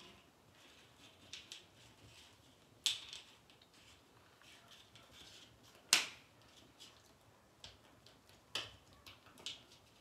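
Irregular sharp clicks and light taps, scattered and unevenly spaced, the loudest about three seconds and six seconds in.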